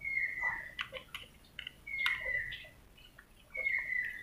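Small clicks and scrapes of a screwdriver working the screws out of a coffee machine's plastic valve assembly. A short whistle-like tone, falling slightly in pitch, comes three times, about every two seconds, and is louder than the clicks.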